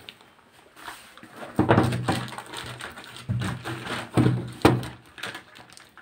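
Plastic protective sheet rustling and crinkling as it is handled over a washing machine's lids, with a few dull knocks of the plastic lid and cabinet, spaced irregularly.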